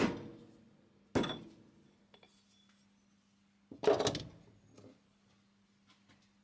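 Two blows of a soft-faced mallet on a steel ER40 collet chuck seated on the lathe spindle, about a second apart, each ringing briefly; a few seconds later a quicker cluster of metal knocks and clinks as the chuck comes off the spindle. The mallet is knocking loose a chuck that was hand-fitted to the spindle with emery paper.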